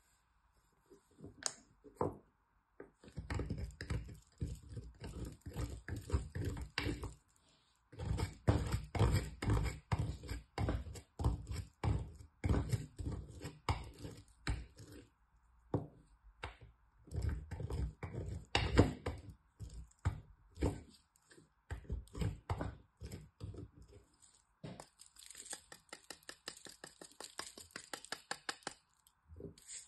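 Bar soap being grated on a small stainless steel box grater: runs of quick rasping strokes several seconds long, broken by short pauses, with faster, lighter strokes near the end.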